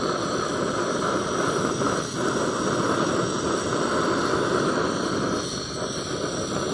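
Portable butane camping stove burning under a pot of water, a steady rushing hiss from the gas flame.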